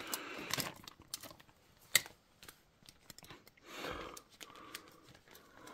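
Light handling noise: a clear plastic zip-top bag crinkling softly and scattered clicks from a tape measure as both are handled, with one sharper click about two seconds in and a brief rustle near the middle.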